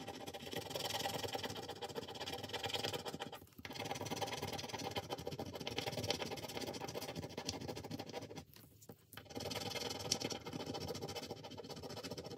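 Fingernails scratching and rubbing rapidly at the scratch-off circles of a paper card, a fast steady rasping that pauses briefly twice.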